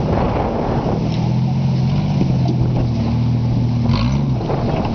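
Jeep Cherokee XJ engine running steadily under load as it crawls up a rock ledge, with a brief dip and recovery in engine pitch about four seconds in.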